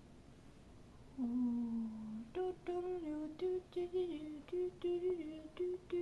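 A woman humming a tune: a long held note about a second in, then a quick run of short, bouncing notes.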